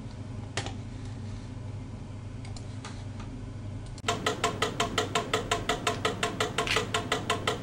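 Two wooden pyramid-style mechanical metronomes ticking out of step with each other. The ticks start abruptly about four seconds in as a rapid run of sharp, slightly ringing clicks; before that there is only a low steady hum.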